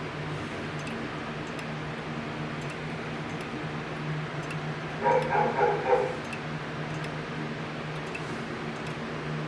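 Grandfather clock movement ticking faintly and steadily over a low, steady hum. About five seconds in, a short choppy burst of three or four quick yaps, like a dog barking, is the loudest sound.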